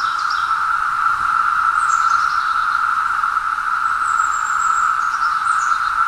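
Brood X periodical cicadas chorusing: a loud, steady drone of massed cicada song. A few short high bird chirps and a thin high whistle sound over it now and then.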